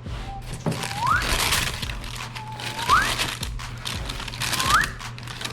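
Paper packaging rustling and crinkling as a sneaker box is unpacked by hand, with three short rising squeaks spaced about two seconds apart.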